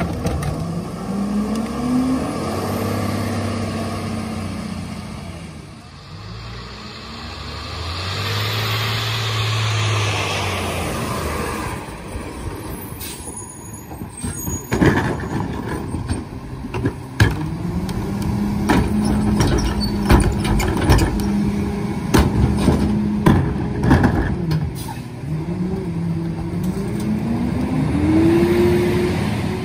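Heil PowerTrak rear-loader garbage truck on a Freightliner M2: the engine revs up and holds high several times to drive the packer hydraulics, with a hiss of air about a third of the way in. Sharp bangs and clatter come through the middle as carts are dumped into the hopper.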